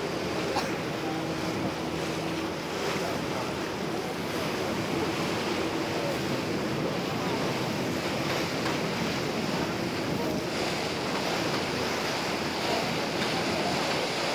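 Steady wind rushing over the microphone and water washing past the hull, heard from the open deck of a moving boat.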